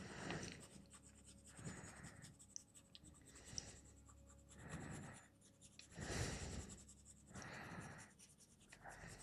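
Coloured pencil strokes on Canson Mi-Teintes paper: soft, faint scratching in short runs, about six of them, the strongest about six seconds in.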